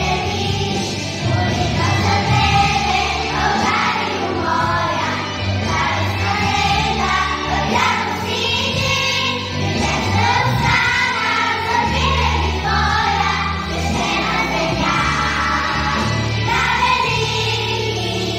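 Children's vocal group singing together over instrumental accompaniment with sustained low bass notes.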